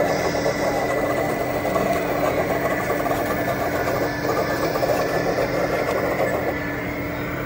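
Small motor running steadily with a constant whine and buzz.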